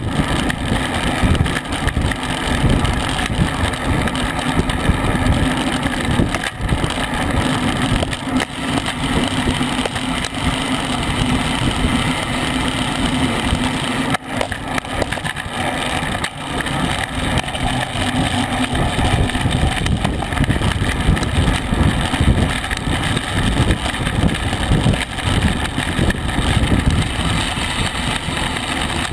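Wind buffeting the microphone of a bicycle-mounted camera at racing speed, about 22 mph, over the rumble of tyres on a concrete road.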